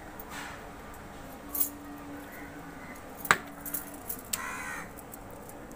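Sharp clicks and knocks from handling the cut fish and the steel plate, the loudest about three seconds in. About four seconds in there is one short, harsh bird call.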